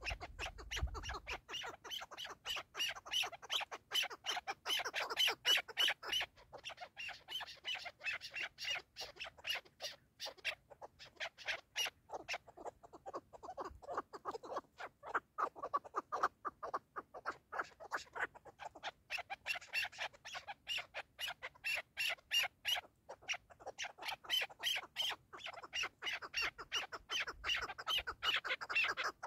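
Chukar partridge calling: long runs of rapid, repeated clucking notes that swell and fade in bouts.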